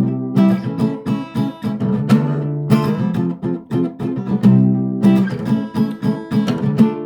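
Acoustic guitar played without singing: strummed and picked chords ringing on.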